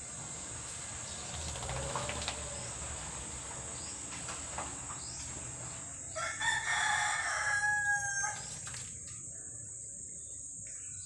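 A rooster crowing once, a multi-part call lasting about two seconds, a little past the middle.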